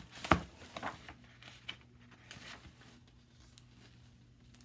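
A hardcover picture book being handled and its page turned: a sharp knock just after the start, then a few soft clicks and paper rustles that fade to faint handling noise.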